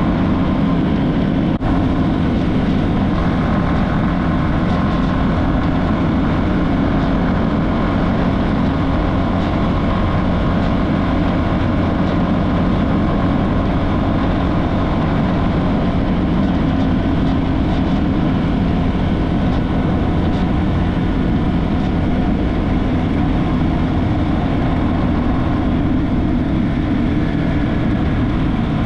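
Motorcycle engine running steadily while the bike is under way, mixed with road and wind noise.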